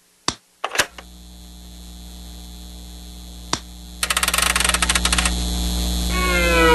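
Cartoon sound effects of a turntable stereo being switched on. A sharp click and clunk as the power switch flips, then a steady electrical hum that swells slightly. About four seconds in comes a rapid run of ratcheting clicks as the volume knob is turned, and near the end a falling whine and another click.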